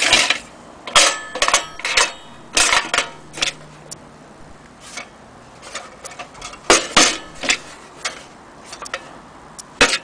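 Sunnie Miss tin toy toaster being handled and turned over, its thin metal body clattering in irregular sharp clicks and knocks, some with a brief metallic ring. The loudest come at the start, about a second in and about seven seconds in.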